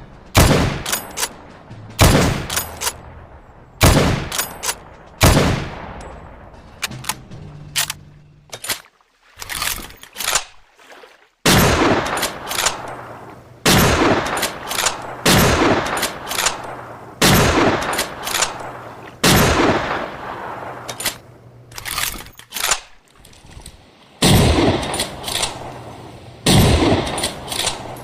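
Mosin-Nagant bolt-action rifle firing shot after shot, about one every one to two seconds, each shot followed by a fading echo, with a short quieter gap near the middle.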